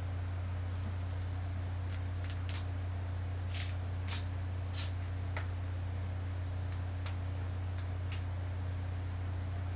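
Steady low electrical hum with a handful of brief, sharp rustles as an elastic ACE bandage is wrapped over a fiberglass arm splint; the loudest rustles come about four and five seconds in.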